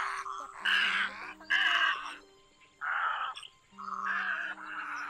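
Egrets giving a series of harsh, croaking squawks (the 'ót ót' call), about one every second, over steady held tones of background music.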